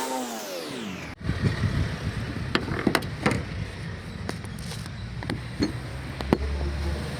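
BMW X2 car engine dropping back from a rev, then, after an abrupt cut, a low steady running rumble with scattered sharp knocks and clicks.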